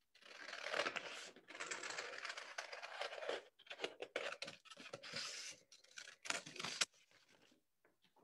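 Scissors snipping through a sheet of green paper in a run of short cuts, stopping about a second before the end.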